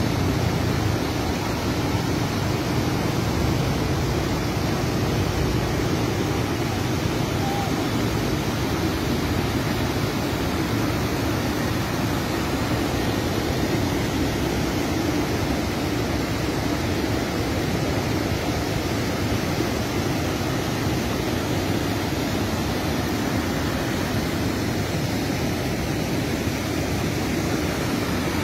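Muddy floodwater rushing steadily across open ground: a constant, even rushing noise with no breaks.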